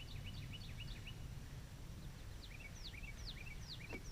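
A songbird calling in the background: a quick run of short, evenly repeated chirps, then after a pause a series of clear downward-sliding notes, over a low steady hum.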